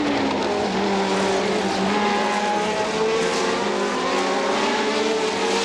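1970s Formula One car engine running at high revs, its note holding fairly steady with a slight rise about three seconds in.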